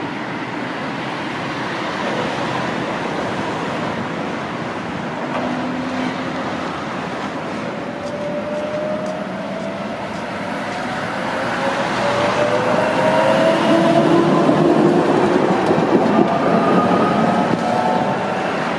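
Electric tram drawing away and accelerating past, its motor whine rising steadily in pitch and getting louder over the second half, with wheels running on the rails and street traffic underneath.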